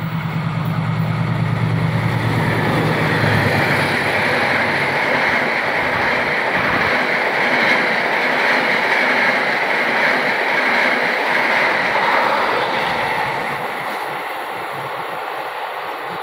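KA Sancaka express passenger train passing at speed: the diesel locomotive's engine hum goes by about three seconds in, then the coaches follow with steady wheel noise on the rails, fading near the end.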